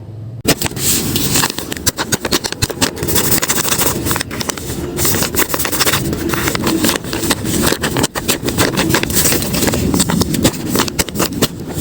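Paper crinkling and crackling as a handmade paper blind bag is handled and unwrapped: a dense, continuous run of sharp crackles starting about half a second in.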